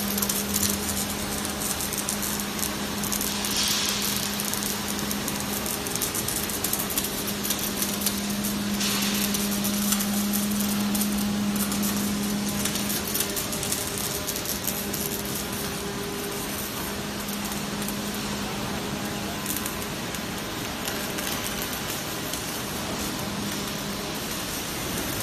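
Robotic arc welding on a steel forklift chassis: the welding arc gives a steady crackling sizzle, over a constant machine hum.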